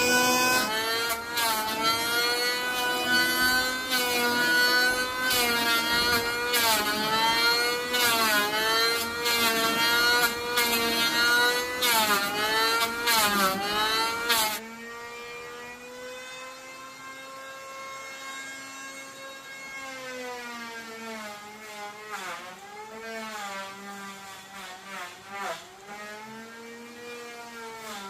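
Electric power-tool motor cutting wood, its pitch dropping each time it bites and climbing back as the load eases, with sharp clicks of the cut in the first half. About halfway through it becomes abruptly quieter but goes on dipping and recovering the same way.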